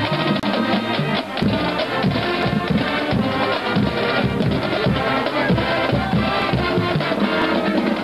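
Marching band playing as it passes: a drumline of snare and bass drums beating a steady rhythm under saxophones and brass.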